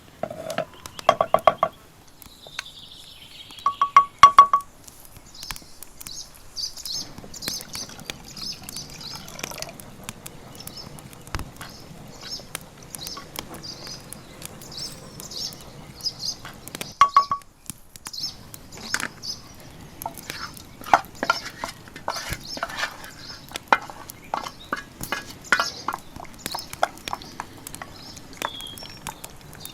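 Short metallic clinks that ring briefly, in small groups about a second in, around four seconds in and again midway, over birds chirping. A run of light clicks and taps follows in the later part.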